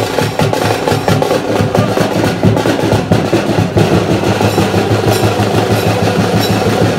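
Loud, fast drumming with the strokes packed closely together and no break.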